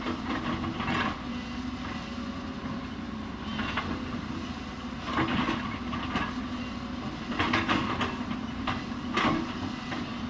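Hyundai 220 crawler excavator's diesel engine running with a steady drone, broken by irregular metallic clanks and scrapes as it digs into the hillside, loudest around five seconds in and again near eight and nine seconds.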